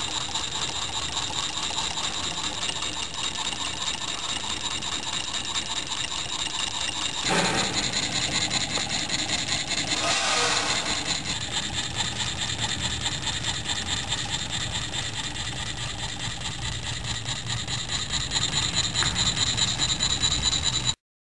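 Homemade Stirling engine, built from salvaged parts and heated by a spirit lamp, running steadily: a fast, continuous mechanical clatter from its crank linkages and spinning flywheel. The sound cuts off suddenly near the end.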